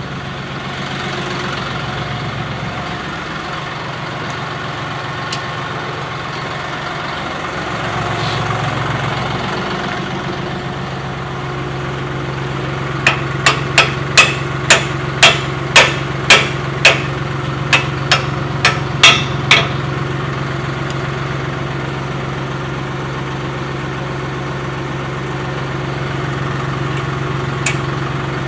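John Deere 5075E tractor's three-cylinder diesel idling steadily. Midway, a run of about fourteen sharp knocks comes roughly two a second at the rear hitch, and one more click follows near the end.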